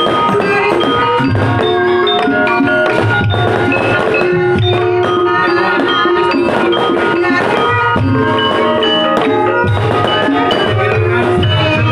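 Javanese gamelan ensemble playing a Pantura-style gendhing: tuned gongs and metallophones ring out in a running pattern of struck notes over low kendang drum strokes.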